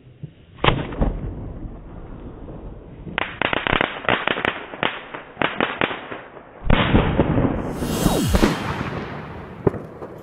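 Fireworks going off. A single sharp bang about a second in is followed by a run of rapid crackling cracks, then a loud, dense rush of bursts with a falling whistle.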